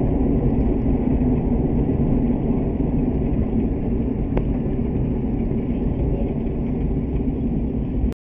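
Steady engine and road noise inside the cab of a Suzuki Multicab mini truck on the move, a deep even rumble, cutting off suddenly near the end.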